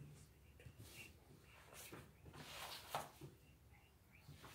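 Near silence: quiet room tone with a few faint rustles and small clicks, the clearest about three seconds in.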